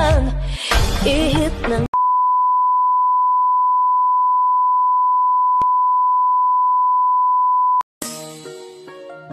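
Pop music ends sharply about two seconds in. A steady 1 kHz test-tone beep, the tone that goes with colour-bar test cards, follows and holds for about six seconds before cutting off. Soft plucked-string music starts near the end.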